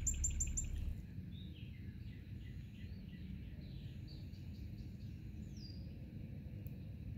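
Outdoor pond ambience with birdsong: a quick run of high chirps in the first second, then faint, scattered short falling chirps over a steady low background. A low rumble underneath drops away about a second in.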